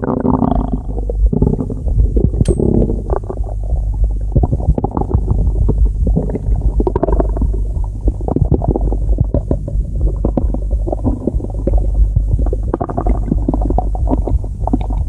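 Stomach growling: a steady deep rumble under a constant run of quick gurgles and pops.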